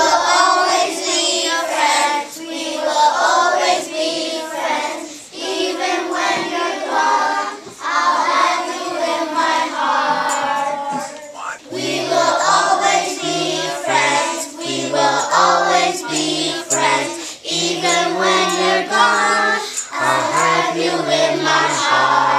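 A group of children singing a song together. A low bass line joins in about twelve seconds in.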